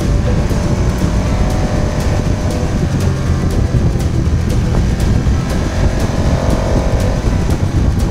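Motorcycle riding at speed: a loud, steady rumble of wind and engine on the onboard microphone, with a faint ticking about twice a second.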